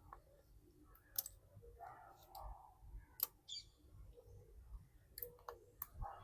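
Scattered sharp clicks and taps of small hand tools against the iPhone's frame and internal parts during disassembly, about five in all, with faint handling noise between them.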